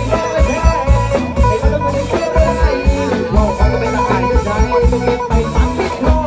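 Lively Thai band music with a steady, regular bass-drum beat under guitar and sustained melody lines.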